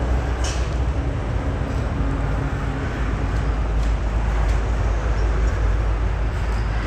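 Bitzer 6FE-44Y six-cylinder semi-hermetic reciprocating refrigeration compressor running on test after an overhaul, giving a steady low hum and rumble.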